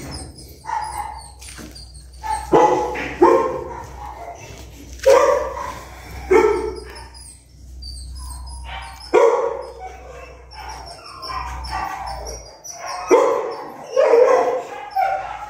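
Small puppy barking and yipping: a string of short barks, one or two at a time, spaced a second or more apart.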